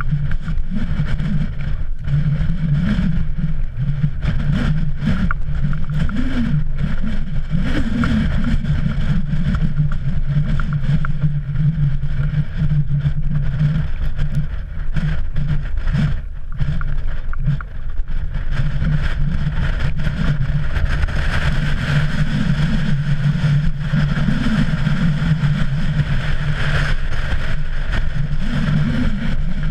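Wind buffeting a GoPro's microphone on an exposed ridge, a loud, steady low rumble that swells and dips, with occasional short knocks.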